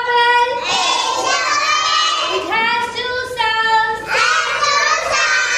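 A child singing in a high voice, a run of long held notes that step up and down in pitch.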